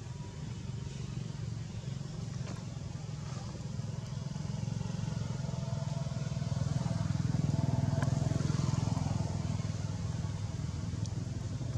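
Low engine rumble of a passing motor vehicle. It grows louder about six seconds in, is loudest around eight seconds, then eases off.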